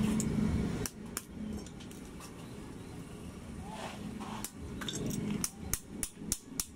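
Hammer strikes on thin sheet steel held over a steel stake, as a chimney piece is shaped by hand. There are a few scattered knocks at first, then quicker taps, several a second, from about four and a half seconds in. A low rumble dies away within the first second.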